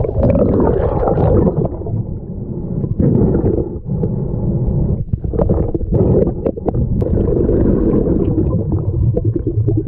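Underwater sound through a GoPro housing: a dense, muffled rumble and gurgle of moving water and bubbles, with a few sharp clicks.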